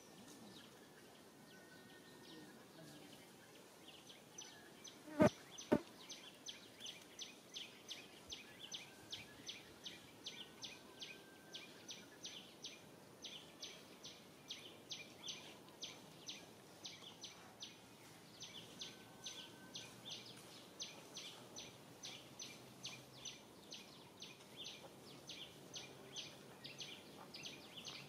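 An insect calling in a steady series of short, high chirps, about three a second, starting about four seconds in. Just after the chirping begins there are two sharp knocks, the loudest sounds here.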